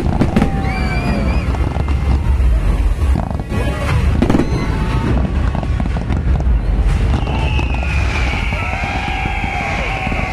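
Fireworks display going off: a dense run of bangs and crackling over a continuous deep rumble.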